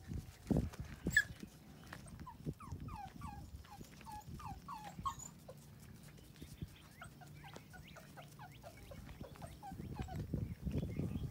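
Five-week-old Labrador retriever puppy whimpering: a run of short, high whines, each falling in pitch, about three a second at first and sparser later. There is some thumping and rustling near the start and the end.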